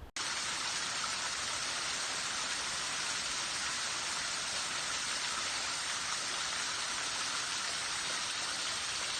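Falling water splashing steadily, an even hiss with no break that starts abruptly at a cut.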